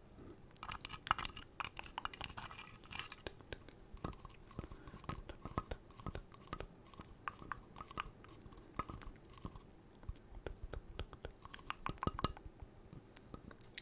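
Fingers tapping on the vinyl head of a Funko Pop figure held right at the microphone: a quick, irregular run of small clicks.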